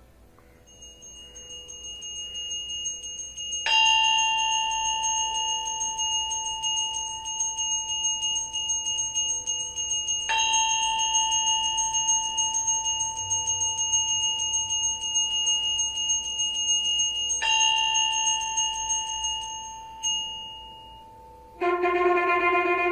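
Brass puja hand bell (ghanti) rung continuously, a steady bright metallic ring that swells during the first few seconds and gets a fresh hard strike three times. The ringing stops about 20 seconds in. Near the end a conch shell (shankh) is blown in one sustained horn note.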